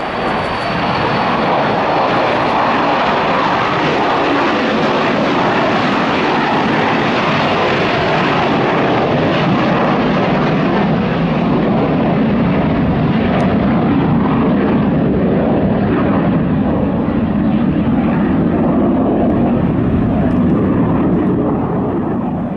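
Boeing 737-200's Pratt & Whitney JT8D turbofans at takeoff power as the jet climbs away: a loud, steady jet roar. As the aircraft recedes the high end fades and it settles into a deeper rumble, then it cuts off suddenly at the end.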